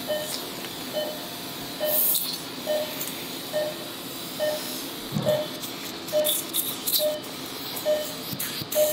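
Operating-room patient monitor beeping with the pulse, one short tone about every 0.85 seconds (roughly 70 a minute), over a steady background hiss. A few light clicks and a soft knock come from the surgical instruments, the knock about five seconds in.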